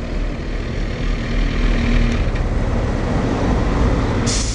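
Steady low rumble of a motorcycle riding in slow city traffic, engine and road noise together, with a short burst of hiss about four seconds in.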